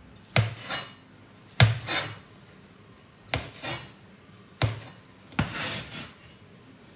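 Kitchen knife cutting cooked lamb tripe, its blade knocking on the cutting board in about eight sharp strokes, often two close together, a second or so apart.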